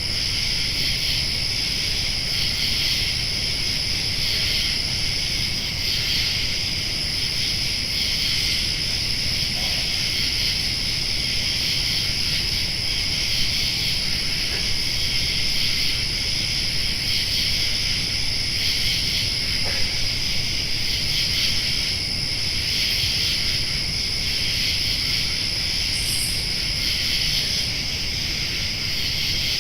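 Summer night ambience: a dense, steady chorus of crickets and other night insects, with a thin, high, unbroken trill above it and a low rumble underneath.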